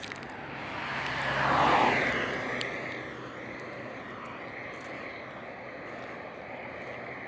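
A vehicle passing close by on the road, its tyre and engine noise swelling to a peak about two seconds in and dropping in pitch as it goes away, then fading into a steady wash of distant traffic.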